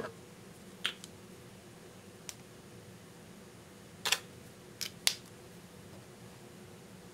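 Scattered sharp little plastic clicks from a glitter glue tube being opened and handled, the loudest a cluster of three between about four and five seconds in, over a faint steady hum.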